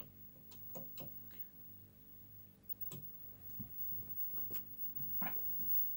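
Steady low mains hum with buzzy overtones from a powered-up Pye/Astor T25X black-and-white television set running on full 230 V mains, with scattered short clicks and knocks over it, the loudest right at the start and about five seconds in.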